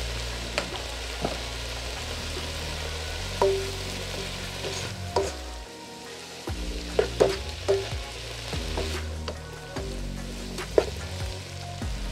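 Diced bell peppers and onions sizzling in a pot while a plastic slotted spatula stirs them, clacking against the pot now and then.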